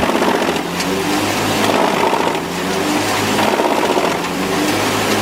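A machine's motor running under load, its sound swelling and easing in repeated surges about every one and a half to two seconds.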